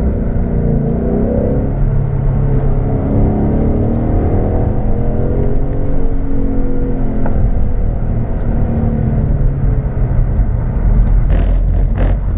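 2015 Ford Mustang GT's 5.0-litre V8 revving up and down under hard acceleration and lifting between corners, its pitch rising and falling continuously.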